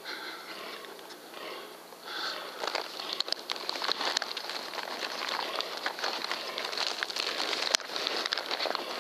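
Dry leaves and twigs rustling and crackling as something moves quickly through forest undergrowth close by, with many small snaps. The sound grows louder and busier about two seconds in.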